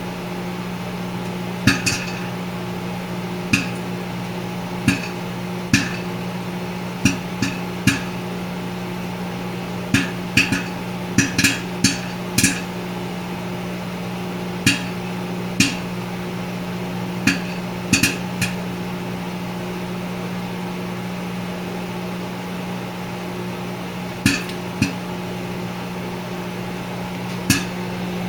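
Popcorn kernels popping slowly and sporadically in a Rapid Brands microwave popcorn popper: single sharp pops at uneven intervals, with a gap of several seconds past the middle, over the steady hum of a running 1,000-watt microwave oven. The popping is relatively slow, which is not typical for this microwave.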